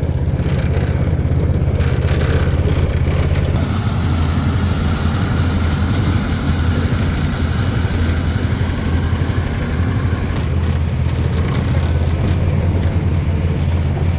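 Tractor engine running steadily, heard close up from the tractor.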